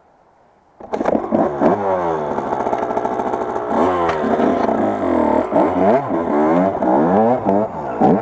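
Enduro dirt-bike engine starting about a second in, then revved hard again and again, its pitch rising and falling with each blip of the throttle as the bike is worked on a steep slope.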